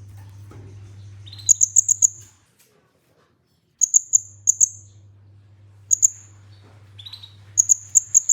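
Kolibri ninja (sunbird) song played back as a training recording: quick groups of three to five very high, sharp chips, some groups opening with a short upward-sweeping note. A low electrical hum runs under the playback and drops out with it in a brief silent gap.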